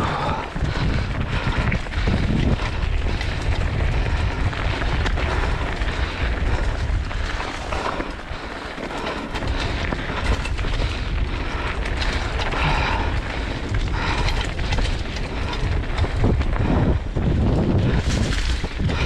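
Mountain bike riding down a rough downhill trail: tyres rumbling and the bike rattling over rocks and roots, with wind buffeting the microphone. The noise surges unevenly as the trail gets rougher.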